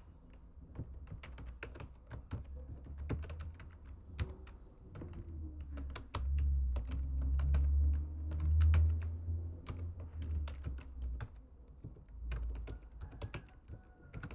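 Typing on a computer keyboard: a run of irregular key clicks. A low rumble sits under the typing for several seconds in the middle.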